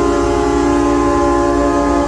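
Many truck air horns sounding at once, their overlapping held notes forming a loud, steady chord.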